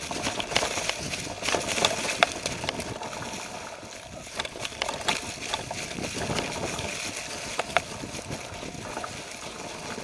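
Mountain bike rolling downhill over a trail covered in dry leaves, with a steady rustling rumble and frequent sharp clicks and rattles from the bike over the rough ground.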